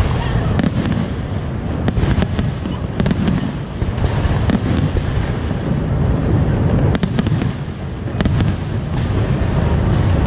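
Fireworks display going off: a continuous low rumble of booms with many sharp crackling pops on top, thickest about seven to eight and a half seconds in.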